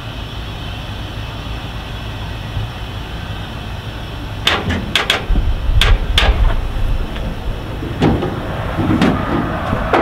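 A vehicle engine idling with a steady low rumble. From about four and a half seconds in, a series of sharp metallic clacks and knocks comes in, about half a dozen in quick succession, then two more near the end.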